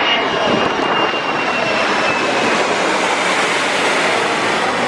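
Airplane passing low overhead: a loud, steady roar with a faint high whine falling slowly in pitch.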